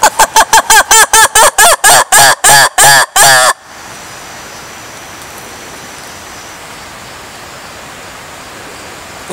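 A lemur calling: a run of about fifteen short, loud calls, each rising and falling in pitch, coming quickly at first and then spacing out, stopping about three and a half seconds in. After that only a steady hiss remains.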